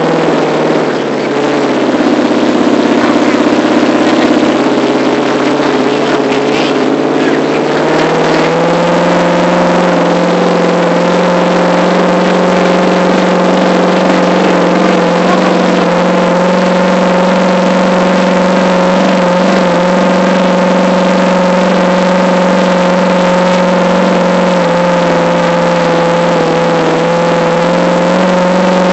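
Monster truck's engine running loudly under the passenger cab. Its pitch drops about a second in, climbs back up around eight seconds in, then holds steady.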